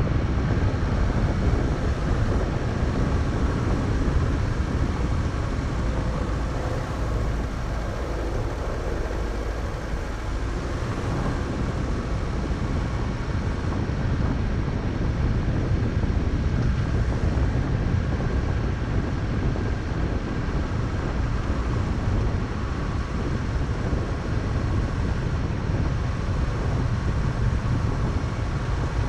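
Car driving steadily along a gravel road: a constant low rumble of engine and tyres on gravel.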